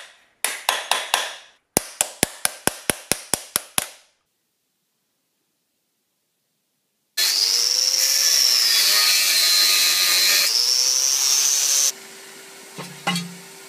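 A metal hammer strikes the homemade steel-tube dishing anvil: a quick flurry, then about ten evenly spaced blows, four to five a second. After a pause, a power tool cuts into a steel fire-extinguisher cylinder for about five seconds, its high whine dipping under load and recovering, then drops to a fainter hum with a couple of knocks.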